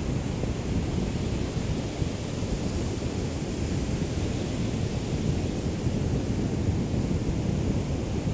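Small sea waves lapping on a beach, heard as a steady wash of surf, with a low rumble of breeze on the microphone.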